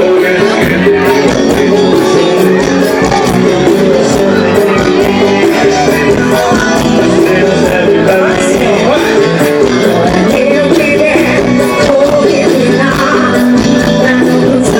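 Live forró band playing a song loudly, a full amplified mix with a steady beat and no break.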